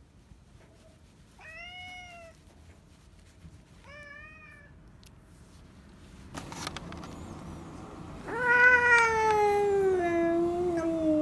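A cat meowing twice, briefly, then a loud, long, drawn-out yowl that slides slowly down in pitch for about three seconds: a cat's threat caterwaul as two cats face off.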